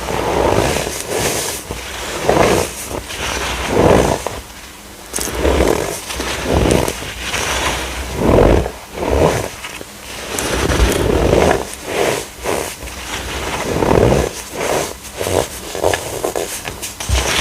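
Compressed baking soda being crushed, a series of loud, irregular crunches about once a second that come closer together near the end.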